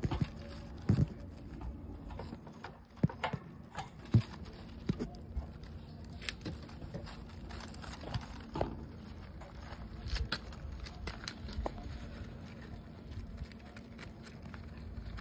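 Irregular light knocks and clicks from a hamster cage, loudest in the first few seconds, over a faint steady hum.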